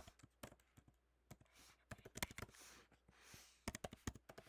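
Computer keyboard typing, faint: irregular runs of quick keystrokes as a web address is typed into a browser's address bar.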